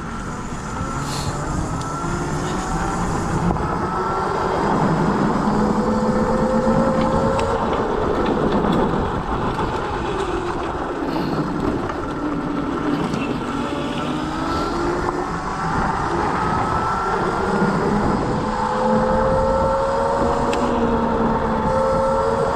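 Scooter motor running while riding, its pitch slowly rising and falling with speed, over steady wind and road rumble.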